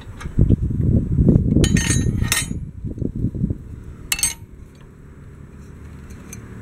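Hands handling the steel hitch parts and drive belt of a flail mower: a few sharp metal clinks, one about four seconds in, over a low rumbling rustle close to the microphone during the first few seconds.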